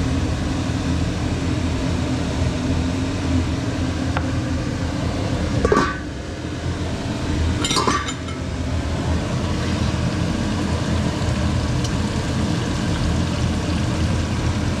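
Eggs frying in a pan over a steady low rumble, with two sharp metallic clinks against the pan about two seconds apart.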